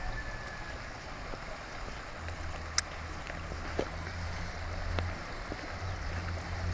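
Floodwater flowing across a road and through flooded fields, a steady rushing wash, with a low steady rumble joining about two seconds in and a few faint clicks.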